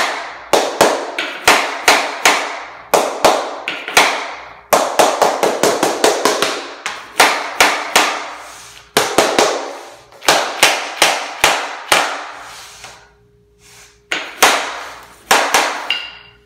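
Soft-faced mallet striking a plastic tapping block against the edge of a LifeProof vinyl floor plank: repeated sharp knocks, about two a second, tapping the plank's click joint shut. The knocks break off briefly about twelve seconds in, then a few more follow.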